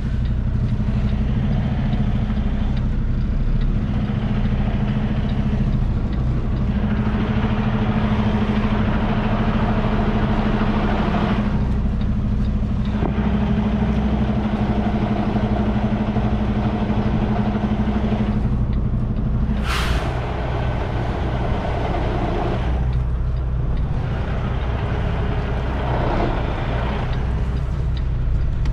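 Semi-truck diesel engine running steadily at low speed, heard from inside the cab while the truck manoeuvres. A brief, sharp hiss of air cuts in about twenty seconds in.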